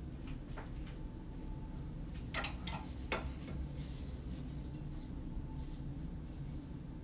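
Wooden clothes hangers clacking against each other and the metal wardrobe rail: a quick cluster of clicks about two and a half seconds in, then a single knock a moment later, over a low steady hum.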